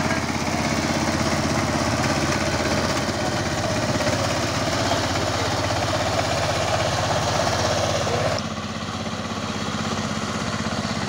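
Power tiller engine running steadily with a fast, even chugging. About eight seconds in, the sound drops suddenly to a slightly quieter, duller note.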